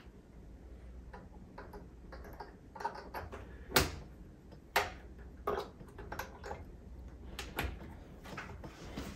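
Small clicks and taps of gold banana plugs and speaker wire being handled and pushed into an AV receiver's speaker binding posts. The clicks are scattered, with the sharpest about four seconds in and a few more over the next few seconds.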